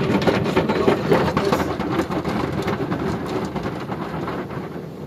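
Water jets of an automatic car wash spraying against the car's windows and body, heard from inside the cabin: a dense hiss full of rapid splatters that slowly gets quieter.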